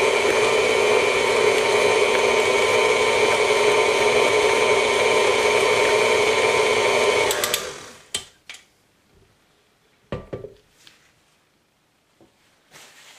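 KitchenAid tilt-head stand mixer running steadily with a flat beater, beating egg into pâte à choux dough, with a steady motor whine. It is switched off about seven and a half seconds in and winds down quickly, then a few sharp clicks and a knock follow as the mixer head is tilted up.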